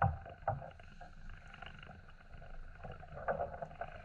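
Small waves lapping against the plastic hull of an RTM Hiro kayak: a low steady wash with a few short slaps, one about half a second in and another a little after three seconds.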